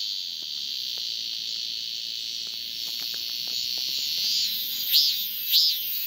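A male Korean robust cicada (Hyalessa fuscata) singing its calling song to attract a female. A steady high buzz holds for about four seconds, then the pulsed 'maem-maem' syllables start again near the end, a little under two a second.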